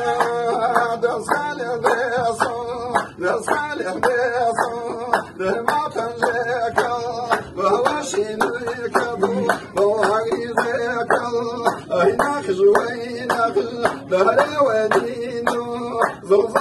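A man singing a Hawrami Kurdish song unaccompanied by instruments, over a group's steady, evenly spaced hand clapping.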